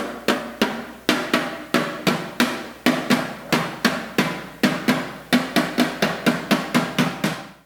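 Children's percussion group beating drums made from recycled metal cans and scrap: a steady beat of sharp, briefly ringing strikes, about three a second.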